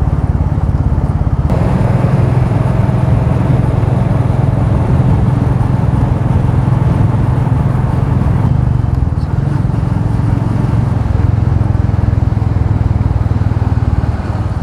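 Royal Enfield Meteor 350's single-cylinder engine running steadily under a ride, with wind rushing over the helmet-mounted microphone. The wind noise grows about a second and a half in.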